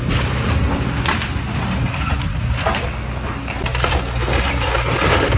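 Caterpillar tracked excavator running as it tears into a house's wooden frame: wood cracking and splintering and debris crashing down over the steady engine, the cracks thickest about four seconds in.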